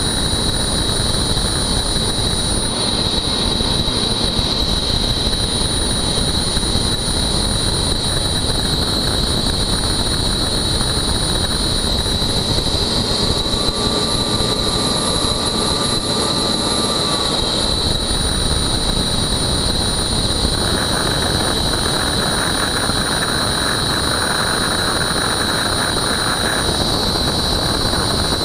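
Helicopter running on the ground with its rotor turning: a steady loud rush of engine and rotor noise with a constant high whine on top.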